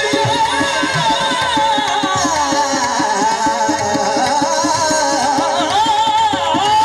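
Qawwali sung live: a lead voice runs through long, wavering, ornamented phrases over held harmonium chords, with percussion keeping a steady beat.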